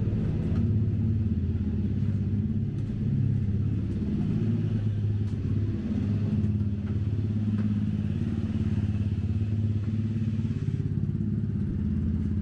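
Several motorcycle and scooter engines idling together in a steady, low drone, echoing off the rock.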